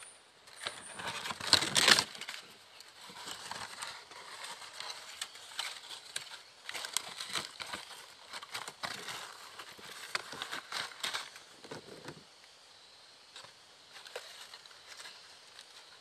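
Leaves rustling and crackling as a hand pushes through foliage and handles a dry leaf, in irregular bursts, the loudest just before two seconds in.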